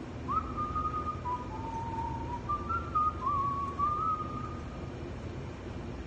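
A person whistling a short tune: a few held notes with slides between them, which stops about five seconds in. A steady low hum from a kitchen exhaust hood lies underneath.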